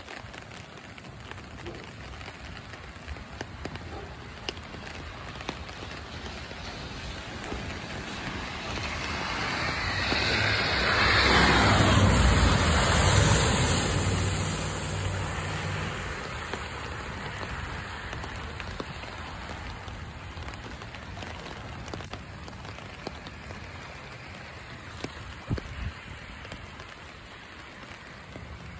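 A car driving through deep floodwater, its tyres throwing up a heavy spray. The hiss of the spray and the engine build from about a third of the way in, peak around the middle and fade away over several seconds, over a steady hiss of rain on the water.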